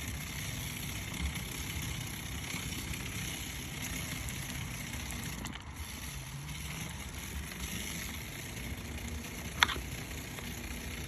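Bicycle with a Shimano Alfine 11 internal gear hub running with a steady rough whirring, the noise that the owner finds suspect. One sharp metallic click with a short ring comes about three quarters of the way in.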